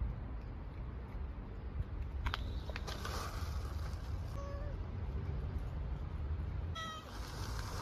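Steady low outdoor rumble, with a few faint clicks a couple of seconds in and two brief, faint pitched calls, one around the middle and one near the end.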